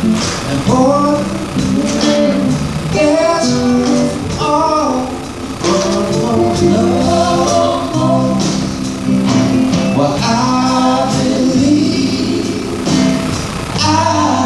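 Live band performing a gospel-soul song: electric bass, electric guitar and drums playing, with singing over them.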